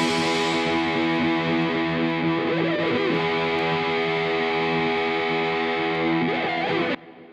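Background music: a distorted electric guitar holding sustained chords that stops abruptly near the end.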